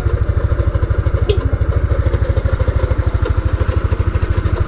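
Yamaha Mio Sporty scooter's small single-cylinder four-stroke engine idling steadily, with a quick, even putter.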